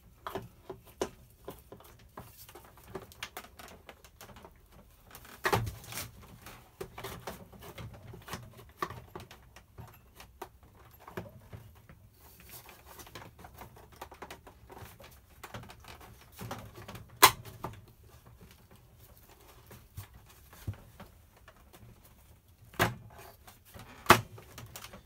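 Small plastic clicks, taps and rattles of a brush bar and its drive belt being worked into the base of an upright vacuum cleaner. There are a few louder knocks, with one sharp click past the middle the loudest.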